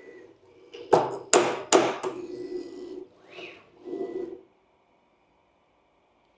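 CNC router making an automatic tool change at a RapidChange Solo spring-loaded single-pocket tool changer. A few sharp knocks come about a second in, then motor hum with a brief rising and falling whine, and a last short burst of machine noise. The noise stops about four and a half seconds in.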